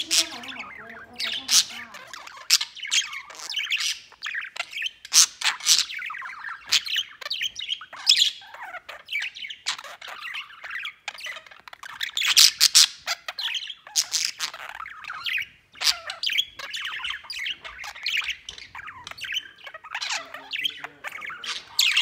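Budgerigar chattering and warbling: a continuous stream of short chirps, clicks and sharper squawks.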